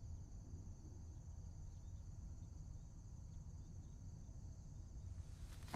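Crickets chirping in a faint, steady high trill over a low background rumble.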